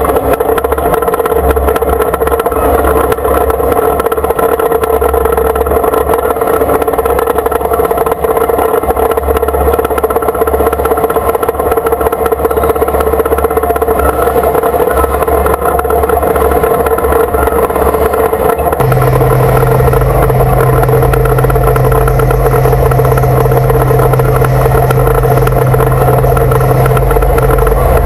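Battle tank's engine and running gear, heard loud and close from a camera mounted on the turret, running with a steady mechanical drone. Near two-thirds of the way in the note shifts abruptly to a louder, deeper drone.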